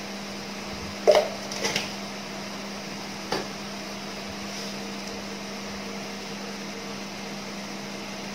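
A spoon knocking a few times against a stainless steel pot, loudest about a second in, over a steady low hum.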